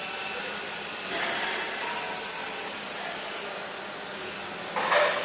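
CNC lathe running with its spindle turning, giving a steady whirring noise. A brief louder burst comes near the end.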